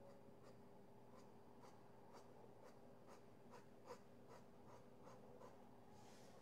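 Faint, regular taps of a paintbrush tip dabbing paint onto cloth, about two a second, over a faint steady hum.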